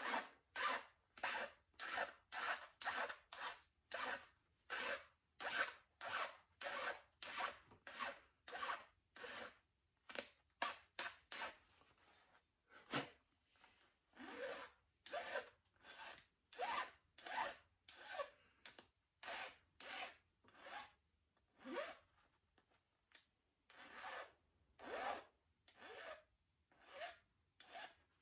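Hand file rasping in quick back-and-forth strokes, about two a second, with a short break about halfway through. This is rough filing of a small hammer part, not yet brought to its finished state.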